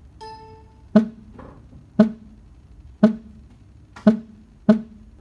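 Hunter computer wheel-alignment console giving a single electronic beep as it prompts the caster measurement step. It is followed by six short hollow knocks about a second apart, the last two closer together.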